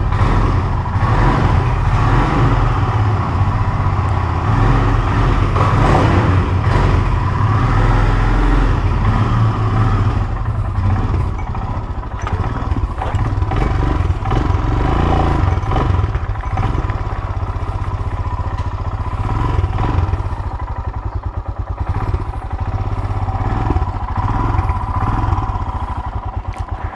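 Royal Enfield Himalayan single-cylinder motorcycle engine running steadily while the bike is ridden, a continuous low engine beat.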